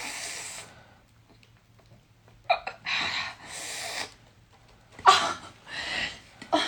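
A woman's short breathy gasps and exhalations, about six in quick succession over the last few seconds.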